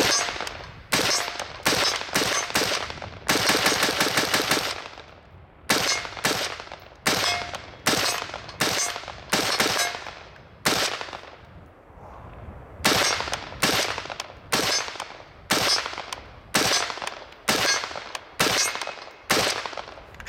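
Palmetto State Armory 20-inch Classic A2 rifle, a semi-automatic AR-15, firing .223 Remington rounds in a long string of shots. The shots come about two a second, each with a short echoing tail, with a quicker run of shots about three to four seconds in and a brief pause just past the middle.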